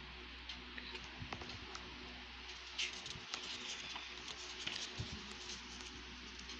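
Textbook pages being turned and handled by hand: light paper rustling with small taps and one brief louder rustle about three seconds in, over a steady low hum.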